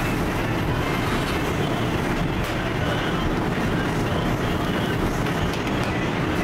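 Steady loud machinery noise, heaviest in the low end, with a few faint knocks on top.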